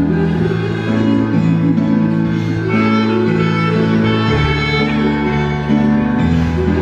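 Live concert music in an instrumental passage: long held string-like chords over a bass line that moves to a new note every second or so, with no singing.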